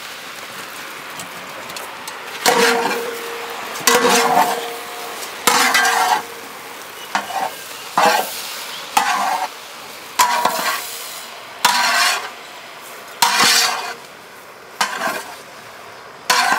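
Long metal ladle scraping and turning chopped okra in a large metal cooking pot, about one stroke every second and a half, some strokes with a faint metallic ring, over a steady low sizzle of the okra frying with spice paste.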